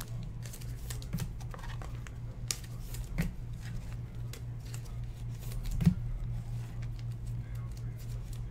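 Baseball trading cards being handled: scattered light clicks, taps and slides of cards against each other and the desk, with two louder taps about three and six seconds in, over a steady low electrical hum.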